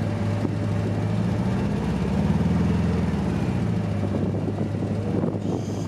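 Vehicle engine running steadily while driving slowly over a sandy track, with a low hum and road noise. The engine note swells and rises briefly about two seconds in, then settles back.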